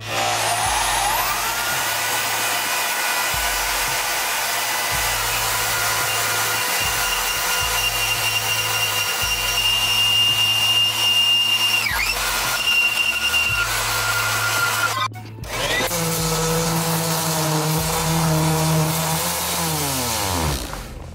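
Milwaukee portable band saw whirring up to speed, then cutting steadily through 3x3x3/16 steel angle iron. After a brief break about three-quarters through, a random orbital sander runs on a steel plate and winds down near the end, with background music underneath.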